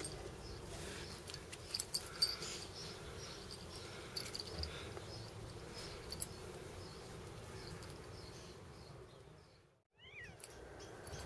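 Domestic cat meowing faintly over steady outdoor background noise, with scattered light ticks.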